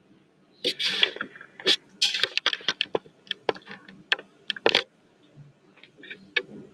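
Paper and notebook being handled and shifted about: a quick run of rustles and sharp clicks for about four seconds, starting about a second in, then a few fainter clicks near the end.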